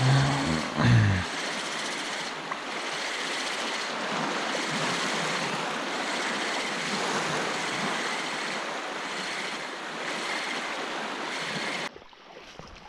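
Steady rush of wind on the microphone and lapping sea water, with two short low tones in the first second. The sound drops abruptly near the end.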